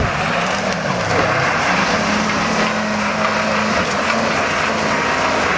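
Chevrolet M1031A CUCV's 6.2-litre diesel V8 running, its engine note rising about two seconds in and holding steady.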